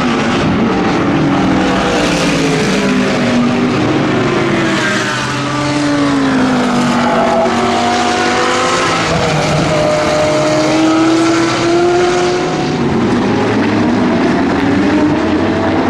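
GT3 race car engines running at racing speed, several at once. The engine pitch drops about a third of the way in, as the cars brake into a corner, then climbs gradually again as they power out.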